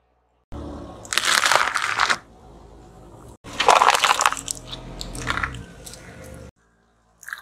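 Car tyre rolling slowly over small objects on asphalt and crushing them: a loud crunching about a second in as small plastic toys break, then after a sudden cut, paper cups crunching and crumpling flat under the tyre, with a low rumble under both.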